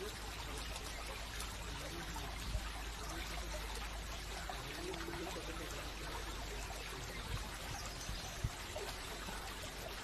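Steady rush of flowing water, like a stream, with a few brief soft clicks.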